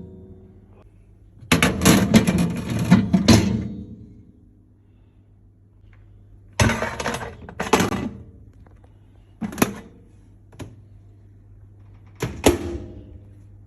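Knocks, clatter and rubbing from handling and cleaning a microwave oven, in several separate bursts over a low steady hum.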